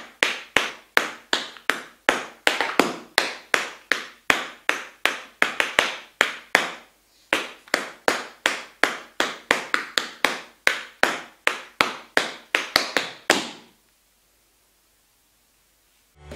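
Tap shoes with metal taps striking a wooden floor in a steady rhythm of about three to four taps a second, with no music, briefly pausing about seven seconds in and stopping about fourteen seconds in.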